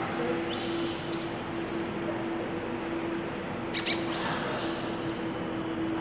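A mixed flock of small tropical songbirds (tanagers, honeycreepers and bananaquits) gives short, sharp, high chip calls, singly and in quick clusters of two or three, with a few brief falling notes. A steady low hum runs underneath.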